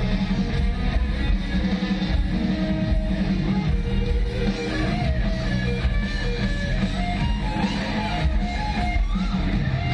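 Live heavy metal band playing through a stadium PA: distorted electric guitars, bass and drums, with a lead guitar line bending in pitch, no vocals.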